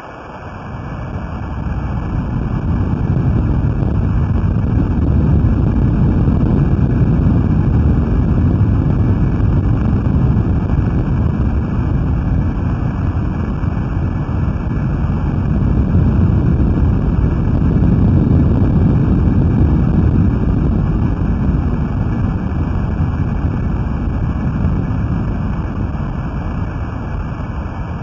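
Underwater hydrophone recording of the magnitude 9.0 2011 Japan earthquake, sped up 16 times: a loud, rushing low rumble. It builds over the first few seconds, swells again a little past the middle and eases slightly toward the end.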